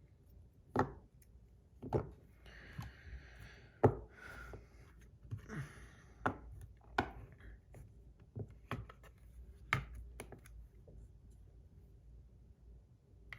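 Small metal fidget-spinner buttons, copper and stainless steel, being handled: a series of sharp, irregular clicks and taps as they are taken off and set down for weighing, with brief scraping and rubbing between them.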